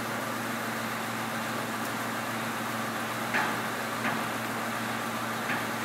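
Steady mechanical hum with a low drone, with a few short clicks and knocks from ratchet tie-down strap hardware being handled, about halfway through, once more a second later and again near the end.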